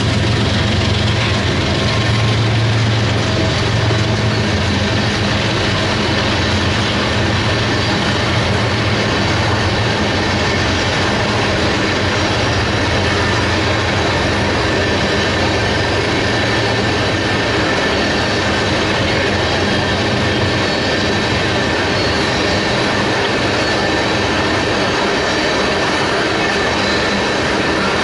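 A train rolling past: the steady noise of railcar wheels on the rails, with a faint high wheel squeal, and a low locomotive diesel drone that weakens after about twenty seconds.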